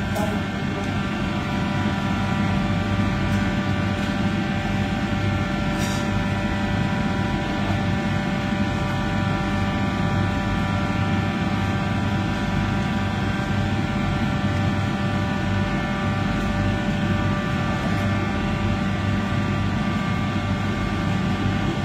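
Steady mechanical drone of commercial kitchen machinery, such as the extraction hood fans and refrigeration units: a constant low rumble with several steady humming tones over it.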